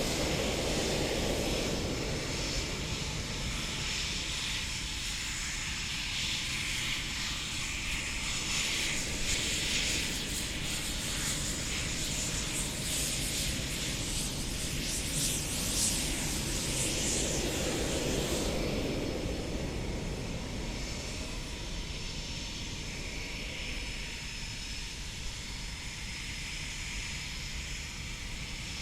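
Eurofighter Typhoon jet fighter flying a display: the noise of its twin jet engines swells as it passes about halfway through, then fades away in the last third.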